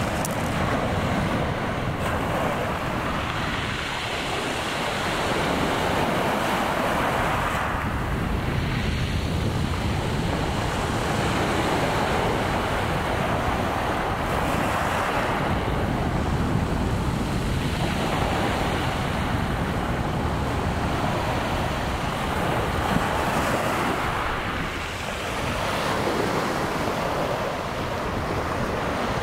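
Small sea waves breaking and washing up a shingle beach, the surf swelling and easing every few seconds, with wind buffeting the microphone.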